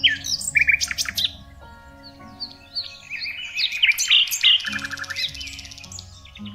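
Several songbirds chirping and calling in quick, overlapping whistled notes, busiest near the start and again in the second half, over soft sustained background music.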